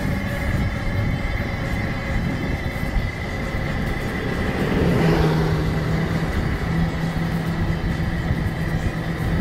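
Steady running noise of a moving vehicle, with a faint high steady whine throughout and a low hum that sets in about five seconds in.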